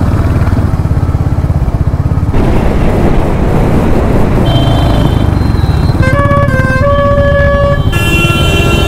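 Royal Enfield Hunter 350's single-cylinder engine running at road speed, with vehicle horns sounding from about halfway: several long held tones that change pitch a few times.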